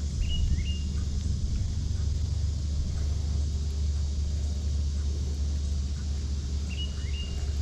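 Steady low hum of a boat motor running, with two short high chirps, one just after the start and one near the end.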